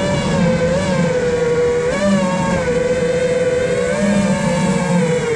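iFlight Nazgul Evoque F5 HD 5-inch FPV quadcopter's motors and propellers whining steadily, the pitch rising and dipping slightly a few times. Heard through the GoPro mounted on the drone.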